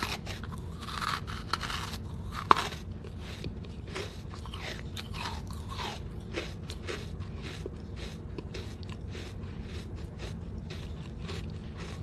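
Red brick being chewed close to the microphone: gritty crunches and crackles in quick, irregular succession, with one sharp, loud crunch about two and a half seconds in.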